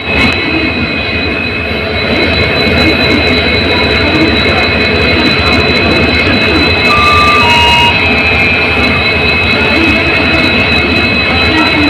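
Twin EMD WDP4D diesel locomotives running with a steady, loud hum: a low engine rumble under a constant high-pitched whine. Their 16-cylinder two-stroke EMD 710 engines keep an even note with no change in revs.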